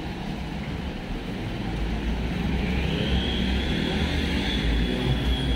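A motor vehicle passing close by in street traffic: a low rumble builds about two seconds in, joined by a high whine that rises in pitch and then holds steady.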